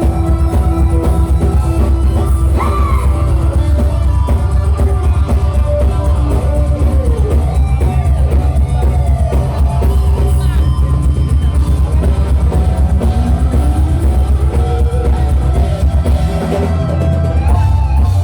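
Loud dangdut dance music played over a sound system, with a fast, heavy bass beat and gliding melody lines over it.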